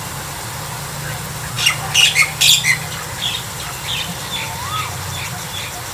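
Birds giving a handful of harsh squawks about one and a half to three seconds in, followed by a run of short, evenly spaced high chirps.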